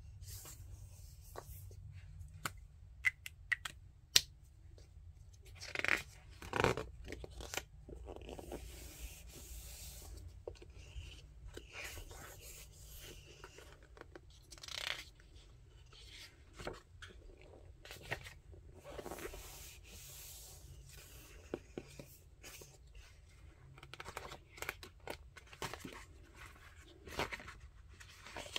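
Pages of a paperback sticker activity book being turned and smoothed flat by hand, the paper rustling and crinkling in irregular bursts, with a few sharp clicks a few seconds in.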